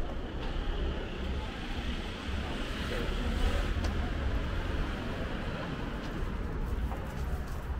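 Outdoor city street sound: a steady low rumble of traffic, swelling slightly about halfway through, with a few faint clicks.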